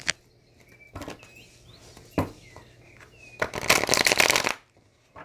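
A stiff tarot deck (Tarot of the Golden Wheel) being shuffled by hand: a few light taps of the cards, then a loud burst of shuffling about three and a half seconds in that lasts about a second.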